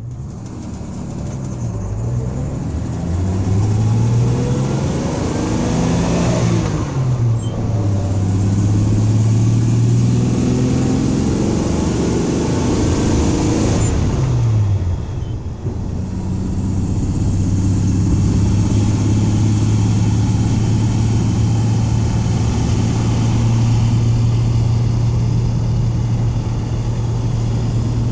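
1984 Dodge van's engine accelerating under throttle: its note climbs, falls sharply at a gear change about seven seconds in, climbs again, drops about fourteen seconds in, then runs steadily at cruise. The driver is listening for a misfire at wide-open throttle.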